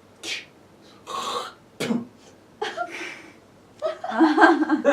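A person's wordless vocal noises: several short breathy hisses, then a louder, longer voiced sound with a wavering pitch in the last second.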